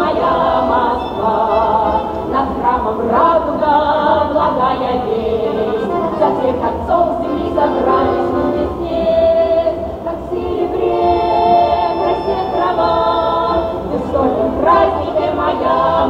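Women's folk ensemble of seven voices singing a Russian folk song in harmony, unaccompanied.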